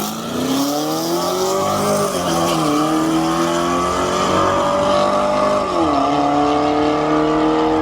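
Car engine accelerating hard: the revs climb, then drop sharply at two gear changes, about two seconds in and again near six seconds.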